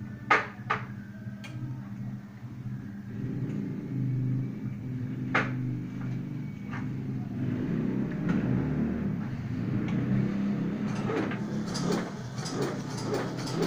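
Automatic incense-stick making machine running with a steady motor hum, with sharp clicks and clatters as bamboo sticks are handled and fed in; the clicks come more often near the end.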